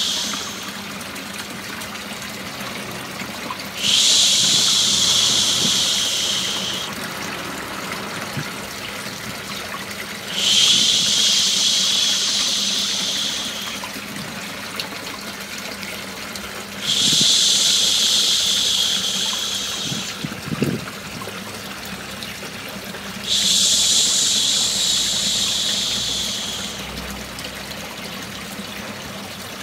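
A long shushing 'shhh' comes four times, about every six and a half seconds, each lasting about three seconds and louder than everything else. Under it runs a steady running-water noise used as white noise to soothe a baby to sleep.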